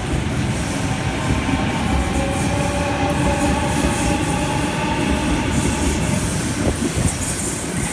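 Sydney Trains Waratah double-deck electric train pulling out and curving away: a steady rumble of wheels on track with a steady whine over it.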